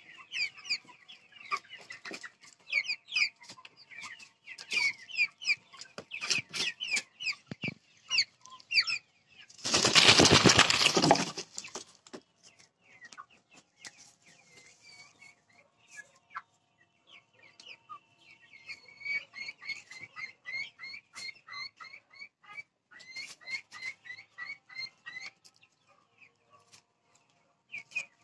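Flock of Vanaraja chickens clucking in a busy stream of short calls. About ten seconds in there is a loud rushing burst lasting about two seconds; the calls then thin out, pick up again for several seconds, and die away near the end.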